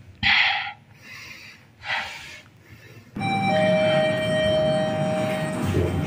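Schindler 5500 machine-room-less traction elevator riding up one floor: two brief noises in the first two seconds, then from about three seconds in a loud, steady hum and rumble with several held tones inside the car.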